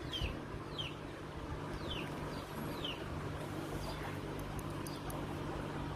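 A bird calling a short falling chirp several times in the first three seconds, over a steady low hum, with a few faint clicks near the end.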